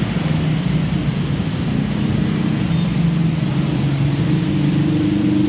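Road traffic passing: a steady mix of car and motorcycle engines, with one engine note climbing slightly in pitch near the end.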